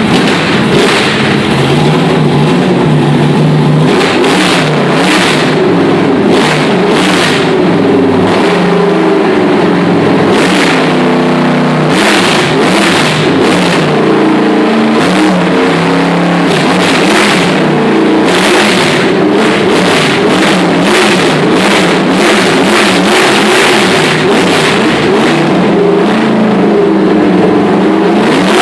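Racing car engine being revved over and over, its pitch rising and falling without a break.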